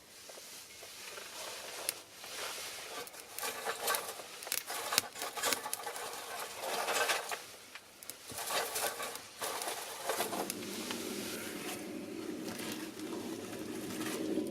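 Pine cones and cherry branches burning in a small fire stand, crackling and hissing in irregular flares with sharp pops. From about ten seconds in, a steadier, lower sound joins in.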